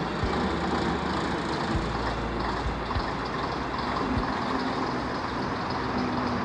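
Engine of a pre-war London Transport STL-class AEC Regent double-decker bus running as the bus moves slowly and turns, the engine note rising a little partway through.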